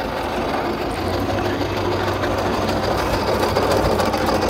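A large steam traction engine on the move: a steady, rapid mechanical clatter over a low hum, growing gradually louder.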